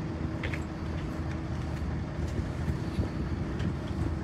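Steady low mechanical drone with a constant hum, with a few faint clinks scattered through it.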